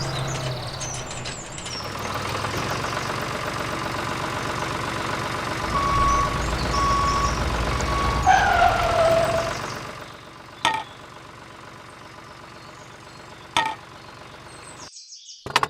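Vehicle engine running steadily, with three short beeps and then a falling tone. About ten seconds in it drops to a quieter background, broken by two sharp knocks.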